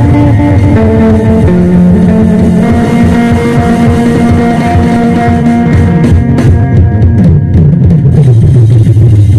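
Electric phin, the Isan plucked lute, playing a lively hae nak procession melody in held and repeated notes over a steady drum beat.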